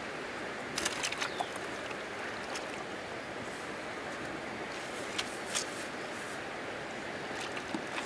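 Steady rush of flowing river water, with short sharp clicks or splashes: a cluster about a second in, a couple more past the middle, and another near the end.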